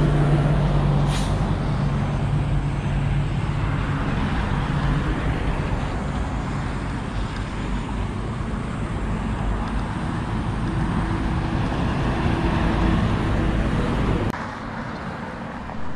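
Road traffic on a busy highway close by: cars and trucks passing with engine hum and tyre noise. It falls away suddenly near the end.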